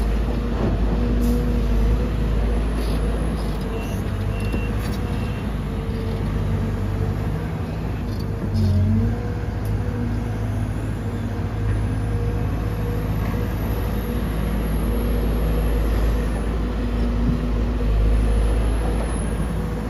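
Heavy diesel engines of an excavator loading a dump truck, running steadily. The pitch dips briefly about nine seconds in.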